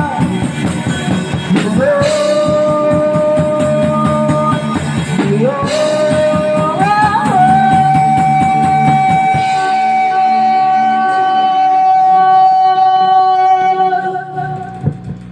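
Live rock band playing, with a melody line that slides up and holds one long note over the drums and guitar. The drums stop about halfway, and the sound dies away near the end.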